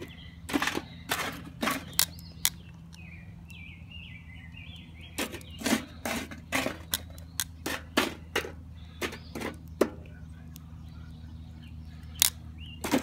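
Metal tongs clicking against charcoal briquettes as the coals are picked up and set down one at a time: a string of sharp, irregular clicks and clinks, with a pause of a couple of seconds early on before they resume.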